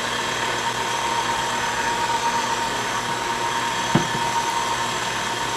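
KitchenAid stand mixer running steadily with a thin whine, its flat beater churning grated carrots into cake batter in a stainless steel bowl. There is a brief knock about four seconds in.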